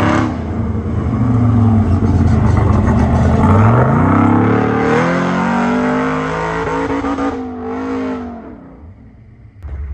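A competition 4x4 truck's engine revving hard, climbing and dropping in pitch several times, then easing off near the end.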